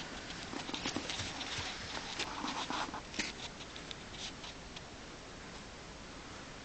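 Young rabbits moving about in a straw-bedded hutch: a run of light rustles and small sharp clicks in the first few seconds, fading after about five seconds.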